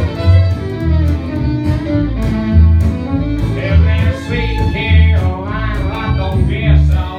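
Live acoustic country band playing: upright bass plucking a steady beat under acoustic guitar and a fiddle carrying the melody, with a singing voice coming in about halfway through.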